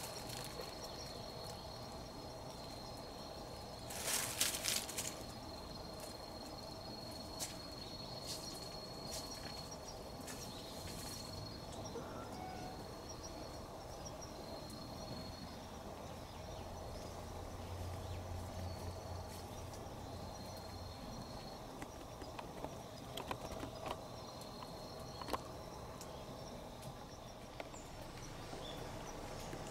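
Outdoor ambience with an insect trilling on one steady high note, breaking off and resuming several times. A short burst of rustling about four seconds in is the loudest sound, with scattered small clicks later.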